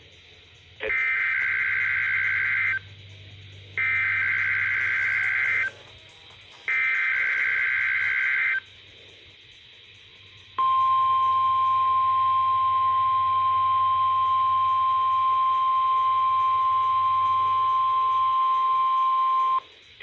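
NOAA Weather Radio weekly test heard through a weather alert radio's speaker. First come three SAME digital header bursts, each about two seconds of rapid two-tone data chirping with a second's gap between them. About ten seconds in, the steady 1050 Hz warning alarm tone starts and holds for about nine seconds.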